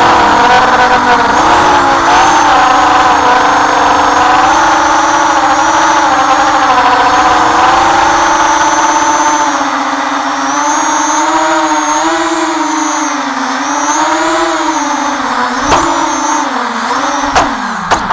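FPV quadcopter's electric motors and propellers whining, the pitch rising and falling with the throttle, with two sharp knocks near the end.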